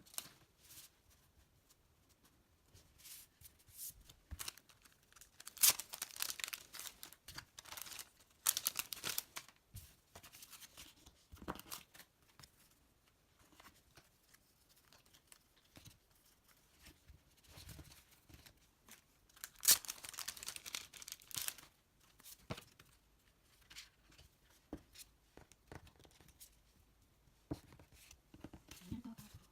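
Packaging being torn open and crinkled by hand, in a few short bursts of tearing and rustling separated by quieter handling.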